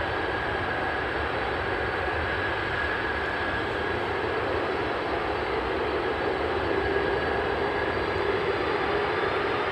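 Boeing 777-300ER's two GE90-115B turbofans at take-off thrust: a steady jet roar with a thin high whine, as the airliner accelerates down the runway away from the listener.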